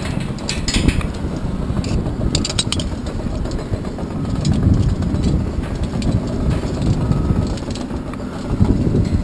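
Wind rumbling on the microphone during a climb up a steel lattice tower, with sharp metallic clinks of climbing hardware against the steel members, most of them in the first three seconds.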